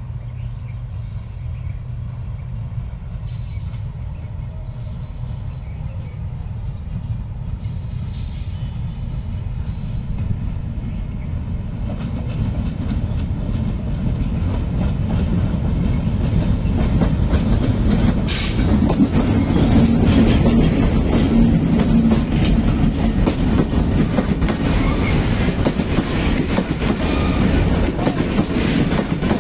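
Diesel-hauled freight train of tank wagons approaching and passing close by: a low rumble that grows steadily louder, then the wagons rolling past with their wheels knocking over the rail joints.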